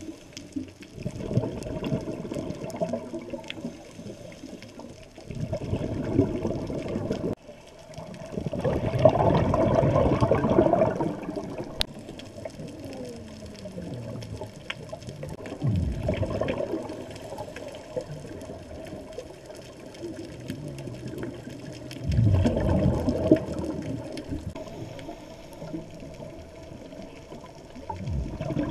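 Scuba exhalation bubbles from a regulator rushing past the camera's underwater housing, in bursts every several seconds with a breath's pause between. Faint scattered clicks and a steady hiss lie under them.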